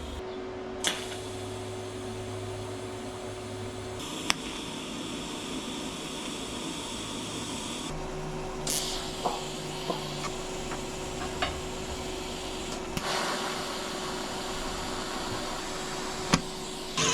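A steady mechanical hum with a few sharp clicks and knocks scattered through it.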